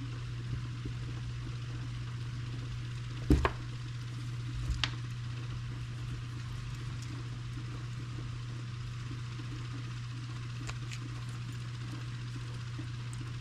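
Small parts handled on a workbench: needle-nose pliers and a fuel pump's wire connectors, with one sharp click about three seconds in and a softer knock a second and a half later. A steady low hum and faint hiss run underneath.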